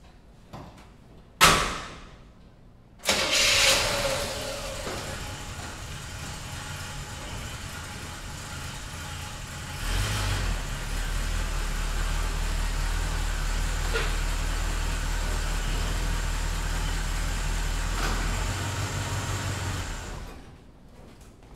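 A door thump, then the 1971 Chevy C10 pickup's engine starts and runs steadily. From about ten seconds in it runs louder and deeper, then shuts off abruptly near the end.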